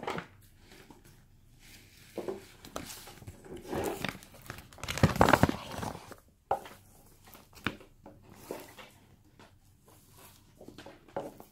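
Paper gift bag rustling and crinkling as a boxed phone is drawn out of it, with the loudest, longest rustle about five seconds in and scattered light handling clicks and taps around it.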